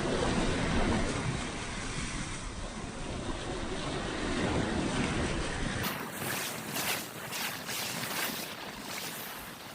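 Sea surf and wind rushing, with wind buffeting the microphone. About six seconds in, it changes abruptly to a thinner, gusty rush that swells several times.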